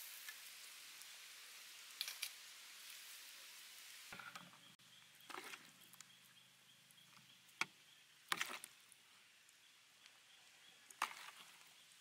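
Pork intestines sizzling on a wire grill over charcoal, a steady hiss with a few pops. About four seconds in the hiss stops, and after it come only scattered light clicks and knocks.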